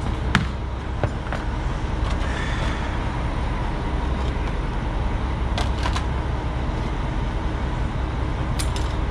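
Steady low rumble of idling trucks, with a few light clicks and taps as plastic truck window screens and cardboard are handled.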